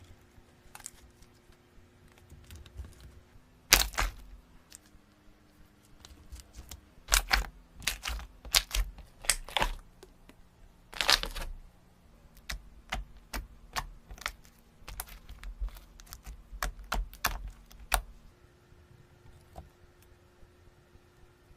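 Irregular sharp clicks and crackles of something being handled, some loud, with light knocks beneath and a faint steady hum.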